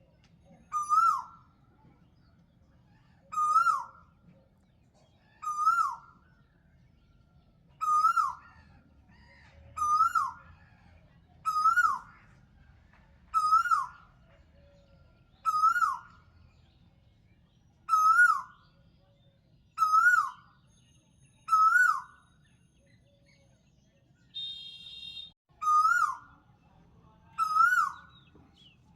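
A bird calling over and over, about once every two seconds: each call is a short whistled note that rises and then drops sharply.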